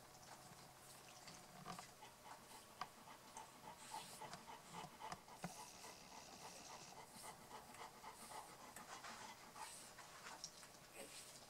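Faint, quick panting from a Tornjak mother dog nursing her newborn puppies, with small clicks and smacks mixed in.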